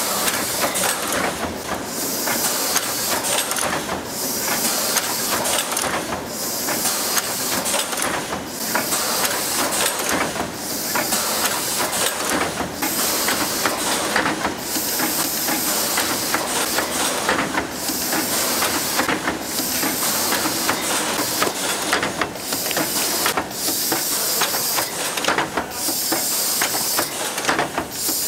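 Automated ice cream filling line running: a steady hiss of compressed air over many small mechanical clicks, with a short break about every two seconds as the machine cycles.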